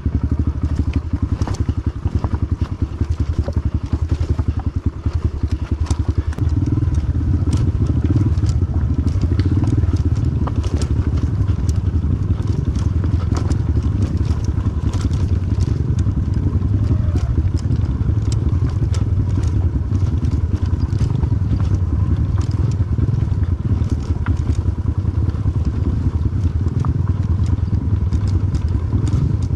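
Pit bike's small single-cylinder engine running steadily under way on an off-road trail, with scattered clicks and rattles over it.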